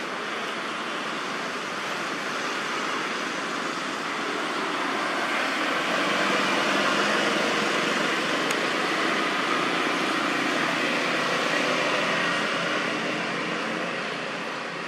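Steady rushing background noise that swells louder in the middle and eases off near the end.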